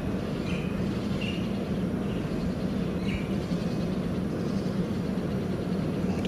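Steady low outdoor drone, with a few short high chirps in the first few seconds.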